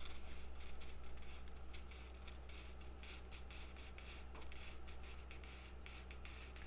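Faint scratching and rubbing handling noises, irregular and light, over a steady low electrical hum.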